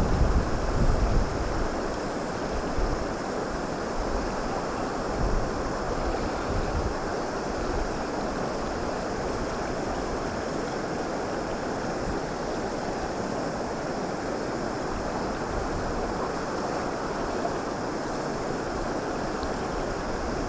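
Steady rush of a shallow, stony stream flowing around the wading angler, with wind gusting on the microphone during the first several seconds.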